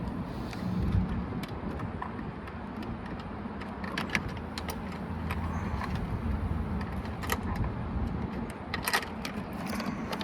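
Steady low rumble with a few sharp, light metallic clinks scattered through it, several seconds apart.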